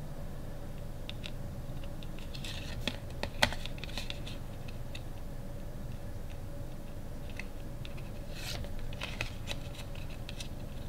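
Stiff cardboard photo cards being handled and flipped through in the hands: scattered light scratches, rubs and clicks, with one sharper snap about three and a half seconds in, over a steady low hum.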